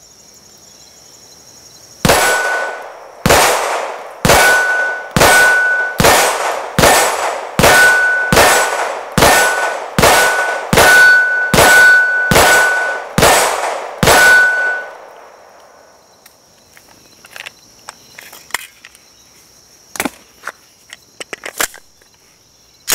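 Glock 17 Gen5 9mm pistol fired in a steady string of about eighteen shots, roughly three every two seconds, starting about two seconds in. Many shots carry a clear ring from hits on an AR550 steel plate target. A few light clicks follow near the end.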